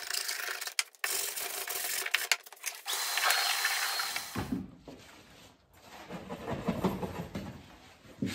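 Old upholstery foam being scraped off a chair shell with a hand scraper: rough, irregular rubbing and rasping, thin and hissy at first and fuller and lower from about halfway through.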